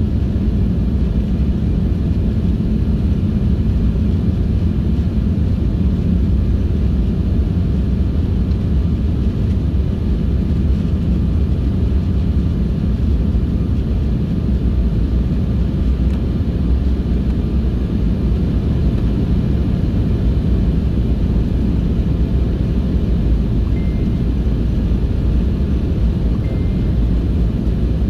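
Steady low rumble inside a jet airliner's cabin in flight: engine and airflow noise heard through the fuselage from a window seat.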